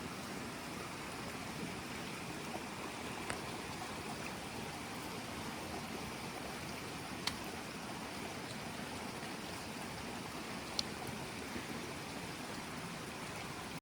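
A steady rushing noise like running water, with a few faint sharp clicks.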